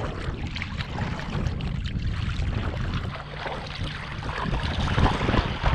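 Water splashing and sloshing close by as a surfer paddles a surfboard by hand, stroke after stroke, over a steady low rumble. The splashes grow louder near the end.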